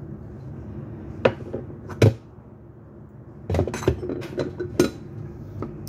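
Glass kitchen containers being handled on a countertop: a sharp knock about two seconds in, then a run of clicks and taps as a glass bottle is set aside and a clip-lidded glass jar is taken up and opened.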